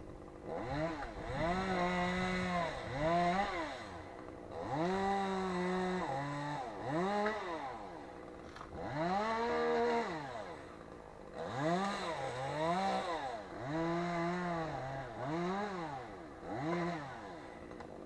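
A chainsaw up in a spruce tree revving up and dropping back about a dozen times, some revs held for about a second as it cuts branches.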